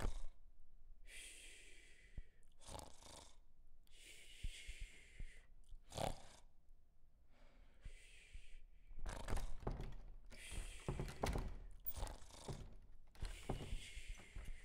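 Foley fight sounds: repeated breathy gasps and hard exhalations, with scattered thuds and rustling. The knocks grow denser and louder about two-thirds of the way in.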